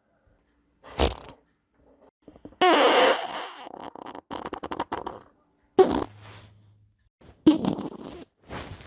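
A string of about five separate farts with short silences between them. The longest starts about two and a half seconds in, running over a second with a wavering pitch before breaking into a rapid juicy sputter; the others are short, sharp blasts.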